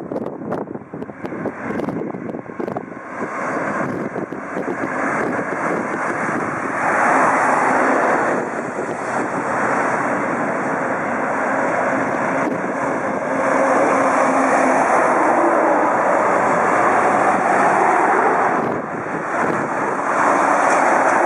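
Jet engines of an ANA Boeing 767 on final approach with landing gear down: a rushing roar that is uneven at first, grows clearly louder about seven seconds in as the airliner comes close, and stays loud as it passes. Wind buffets the microphone in the first few seconds.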